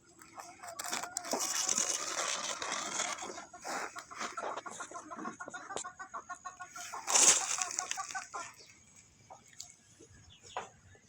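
Chickens clucking and squawking in a busy flurry, loudest about seven seconds in, then dying down to a few scattered sounds near the end.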